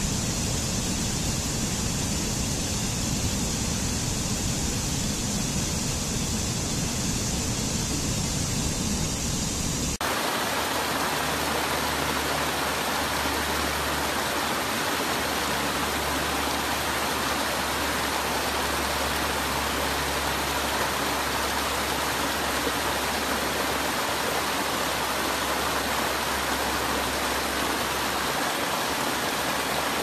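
Steady rush of falling water from a waterfall. About ten seconds in it changes abruptly to a different, brighter rush of water, as from a second waterfall.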